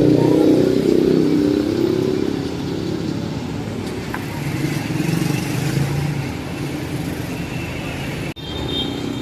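Road traffic passing close by: a motor vehicle engine, loudest at the start and slowly fading, with the general hum of the street behind it. The sound drops out for an instant near the end.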